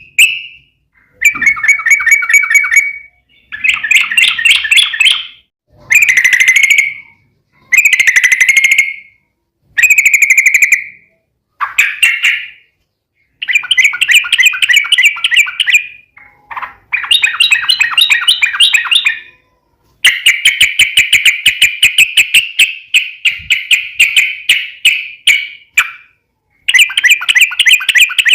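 Yellow-vented bulbul (trucukan) singing loud, fast bubbling rolls of chattering notes in repeated phrases about two seconds long with short pauses between them, and one longer run of about six seconds past the middle.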